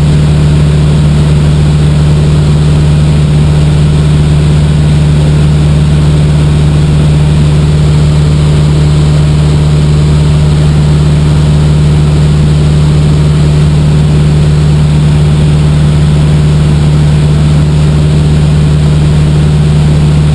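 Cessna 150's four-cylinder Continental O-200 engine and two-blade propeller droning steadily in cruise flight, heard loud from inside the small cockpit with a deep, even hum that doesn't change.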